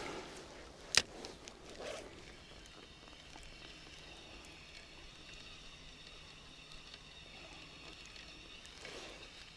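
A sharp click about a second in, with a few lighter knocks just after it, then the faint, steady whir of a spinning reel being wound in as a lure is retrieved.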